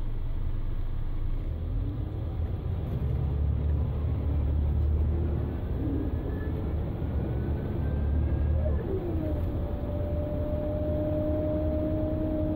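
Scania L94IB bus heard from inside the cabin while driving: the DC09 diesel engine's deep drone and the whine of its ZF Ecomat 5HP600 automatic gearbox. The whine climbs in pitch as the bus pulls, drops about nine seconds in, then holds a steady pitch.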